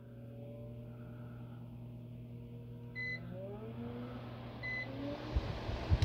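Two Bell & Howell/Emson LED socket fans' small motors humming as they run up, with two short electronic beeps about three seconds and just under five seconds in. After each beep the motor whine rises in pitch and the whoosh of the blades grows, the fans stepping up in speed. Low buffeting thumps near the end from the fans' draught on the microphone.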